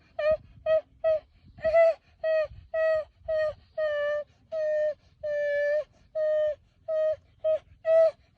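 A young animal crying over and over: short, high, even-pitched calls, about two a second, a few drawn out longer in the middle.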